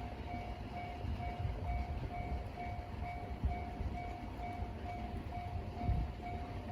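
Japanese railway level crossing's electronic warning bell (the JR standard tone) ringing at about two strikes a second, each strike one steady high ding, over a low uneven rumble.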